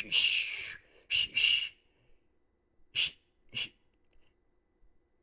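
A man whistling breathily, more air than tone: two longer airy whistles in the first two seconds, then two short puffs around the middle.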